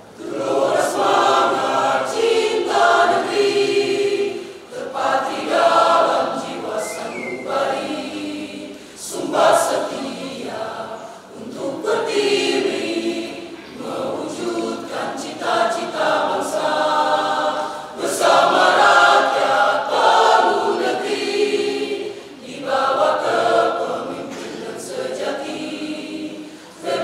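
Mixed adult choir of men's and women's voices singing a cappella, starting suddenly and moving in phrases with brief breaths between them.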